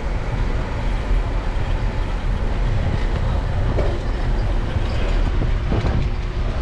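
Steady low rumble of wind and road noise picked up by a bicycle-mounted GoPro while riding down a street.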